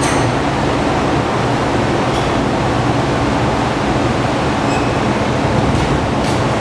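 A wheel spin-test machine runs steadily, turning a 2006 Harley-Davidson Fat Boy wheel to check it for runout. It gives an even mechanical drone with a low hum and a few faint light clicks.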